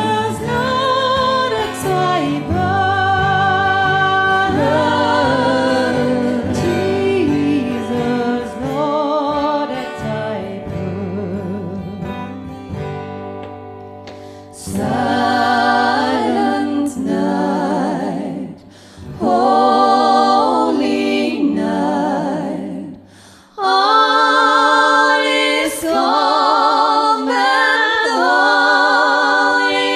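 Female vocal group singing sustained notes in close harmony, with acoustic guitar accompaniment. The low accompaniment drops out about two-thirds of the way through, leaving the voices alone.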